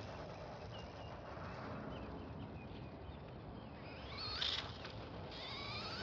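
Motor whine of a WLToys L202 Pro brushless RC buggy, heard at a distance across the lot. It rises sharply in pitch as the buggy accelerates about four seconds in, peaks briefly, then climbs again and holds a steady high whine near the end.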